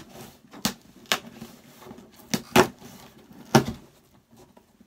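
Cardboard shipping box being opened by hand, its flaps and packing pulled at, with several sharp knocks and crackles of the cardboard. The two loudest come about two and a half and three and a half seconds in.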